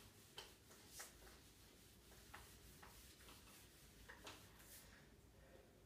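Faint, irregular swishes and taps of a board duster wiping a whiteboard, a handful of separate strokes.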